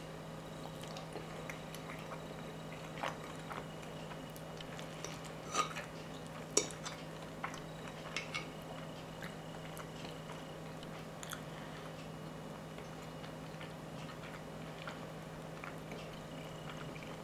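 A metal fork clinking and scraping against a plate, with chewing, as someone eats. A scatter of short sharp clinks, the loudest two near the middle, over a steady low hum.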